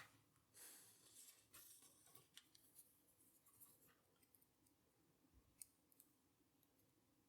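Faint scraping and light metallic clicks of a padlock being worked apart by hand with small tools, the scraping in the first few seconds and a sharper click about five and a half seconds in.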